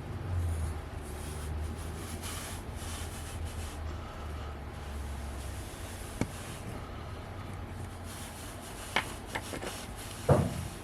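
Small parts being handled on a workbench during a camera-lens teardown: a few faint clicks, then a sharper knock near the end, over a low steady hum.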